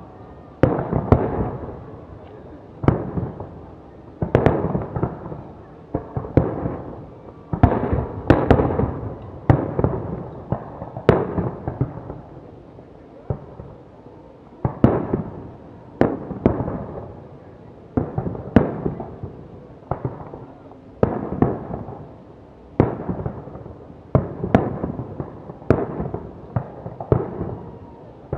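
Fireworks salute: aerial shells bursting one after another, roughly one bang every one to two seconds, each bang trailing off over a second or so.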